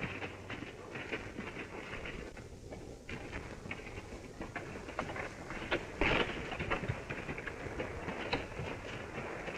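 Scattered, irregular clicks and knocks over the steady hiss of an old optical film soundtrack, with a louder knock about six seconds in.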